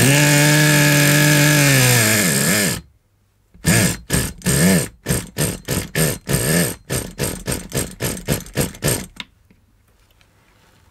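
Small single-cylinder nitro glow engine of a vintage HPI Rush RC truck running steadily for a little over two seconds, then sagging in pitch and dying; the owner partly blames its kinked exhaust. After a short pause comes a rapid series of pulls on the recoil starter, about three a second, each briefly spinning the engine without it catching.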